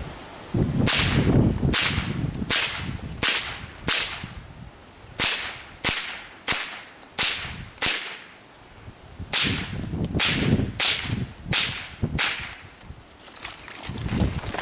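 .22 LR rifle firing about fifteen shots in three quick strings of five, roughly a shot every two-thirds of a second, with short pauses between the strings.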